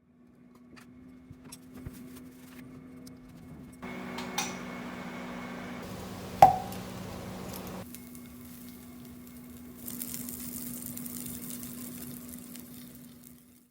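Tabletop cooking prep: dishes and utensils clinking and food being handled, with one sharp knock about six and a half seconds in, over a steady low hum. A soft sizzling hiss comes in after about ten seconds.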